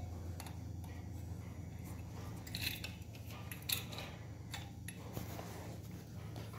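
A few light metallic clicks and scrapes as a finned cylinder barrel is worked down over the studs onto the piston of a motorcycle engine, the sharpest click a little past halfway, over a steady low hum.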